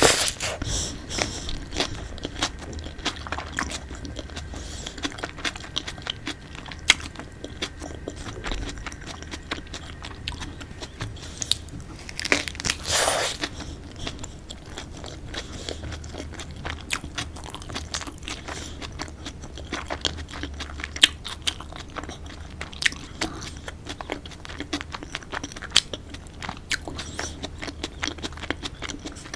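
Close-miked eating of a tortilla-wrapped chicken wrap: crunchy bites and wet chewing with many small mouth clicks, and a louder bite about twelve seconds in.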